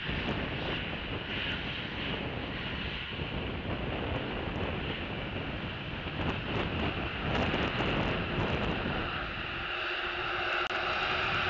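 Wind gusting over an outdoor camera microphone: an uneven rush of noise with a low, fluctuating rumble. Near the end a steady tone joins the wind noise.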